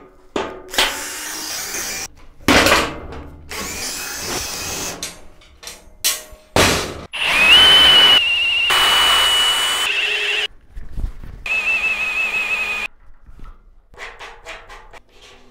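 Cordless drill running in a series of short bursts, with two longer runs of steady high motor whine around the middle; the first of those rises in pitch as the motor spins up.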